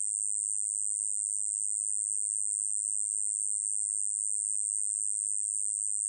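Song of the 꼬마여치베짱이, a small Korean katydid: one continuous high-pitched buzz, unbroken and even in level throughout.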